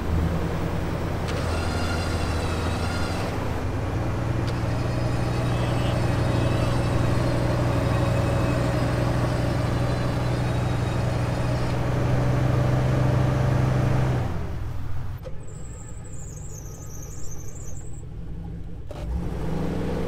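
Off-road recovery vehicle engines running steadily under load during a winch pull, with a high whine over the top twice in the first half. The engine sound drops away about 14 seconds in and picks up again near the end.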